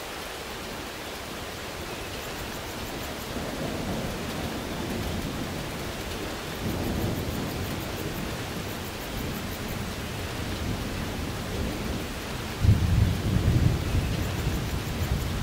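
Steady rain with rolling thunder: low rumbles swell in a few times, the loudest starting about twelve and a half seconds in.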